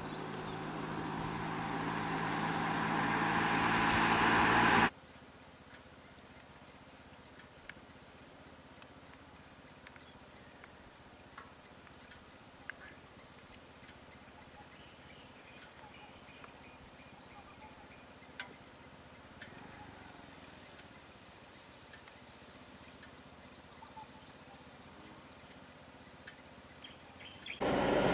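Insects droning steadily on one high pitch. For the first five seconds a vehicle engine grows louder and then stops abruptly. After that, short faint rising chirps repeat every couple of seconds over the drone.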